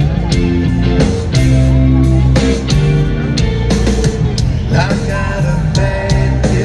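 Rock band playing live through a stadium PA: electric bass, electric guitar and a drum kit keeping a steady beat.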